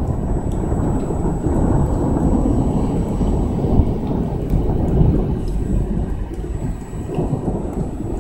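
Thunder rolling for several seconds, swelling about two seconds in and easing off toward the end, over steady rain.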